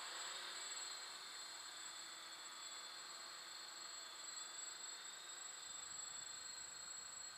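Small quadcopter's propellers buzzing steadily in flight as it climbs away, the sound easing slightly as it moves off.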